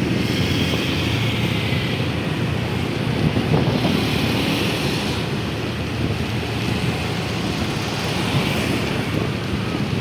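Steady running noise of a moving road vehicle, with wind buffeting the microphone.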